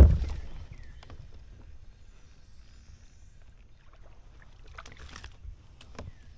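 A sudden low knock against a plastic fishing kayak's hull that dies away over about half a second. It is followed by quiet water and hull noise, with a few sharp ticks about five seconds in.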